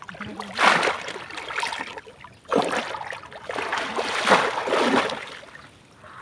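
Pond water splashing and sloshing as a man wades through it, swinging and plunging a bamboo bell-shaped fish trap. It comes in two long bouts, the second starting about two and a half seconds in, and fades near the end.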